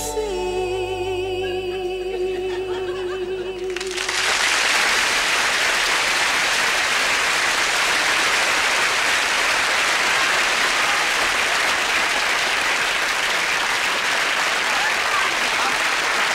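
A female singer holds a final note with vibrato over the band's closing chord, which ends about four seconds in; then a studio audience applauds steadily.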